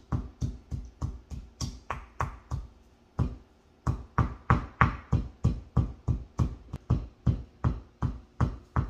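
Stone pestle pounding toasted dried chilies in a stone mortar: steady strikes about three a second, with a brief pause about three seconds in.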